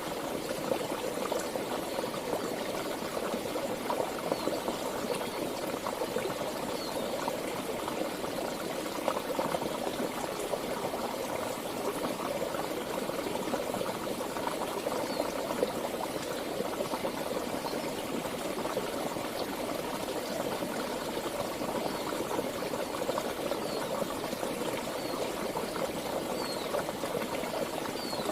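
Water flowing steadily in a stream: an even, unbroken rushing and burbling.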